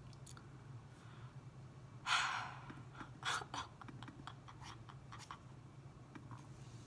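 Sparse clicks of computer keyboard keys being typed over a steady low hum, with a short, loud breathy rush of noise about two seconds in and a shorter one about a second later.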